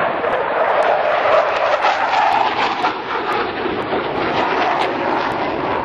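Blue Angels F/A-18 Hornet jets flying low overhead, a loud, steady jet-engine roar.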